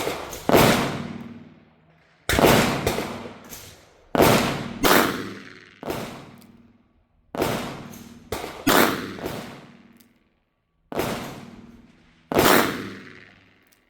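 Taurus Judge revolver firing a string of shots loaded with .45 Long Colt and .410 slugs, about one every one to two seconds. Each shot is a sharp report that rings out and fades.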